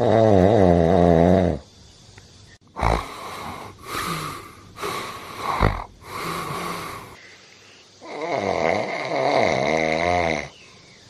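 A man snoring in his sleep: a long, wavering rattling snore, a few shorter breathy snores, then another long wavering snore near the end.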